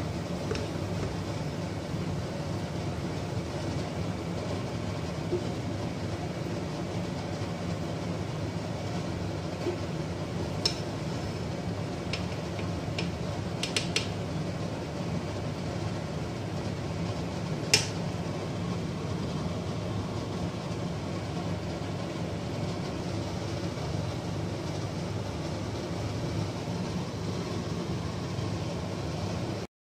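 Steady low rumbling background noise as cooked rice pulao is mixed in a metal pot, with a few sharp clicks of the spatula against the pot about a third of the way in and again just past halfway.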